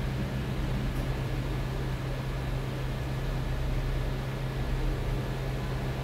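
Hot air rework station blowing: a steady hiss of air over a low hum.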